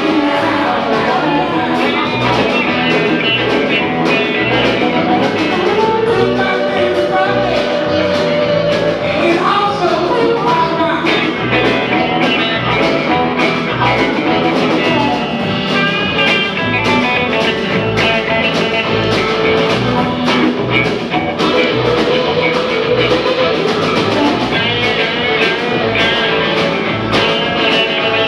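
Live rock and roll band playing a song with electric guitars, drums and keys over a steady driving beat, with bending lead notes about nine seconds in.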